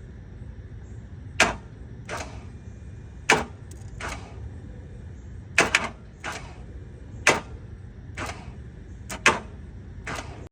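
Starter solenoid on a 1999 Ford F-250's 5.4 L Triton V8 clicking repeatedly without the engine cranking, the truck's no-start fault. There are a dozen or so sharp clicks at irregular intervals, some in quick pairs and some followed by a softer click.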